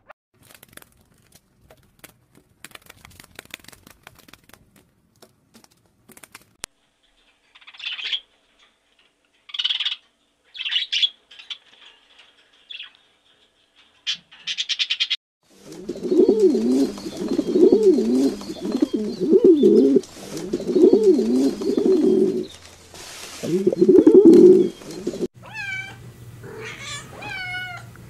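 A string of different animal calls: faint scratching and clicks, then short high calls, then a run of loud, lower calls that rise and fall in pitch about every second and a half. Near the end a domestic cat meows several times.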